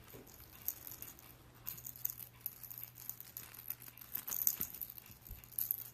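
A cat's shooting star wand toy rattling and rustling in faint, irregular high-pitched jingles as a cat bats and chases it.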